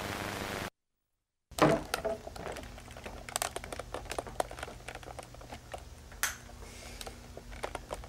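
A short burst of TV static hiss that cuts off abruptly, then, after a moment of dead silence, the noise of an old videotape recording: a steady low hum with scattered clicks and crackles, opening with a loud knock.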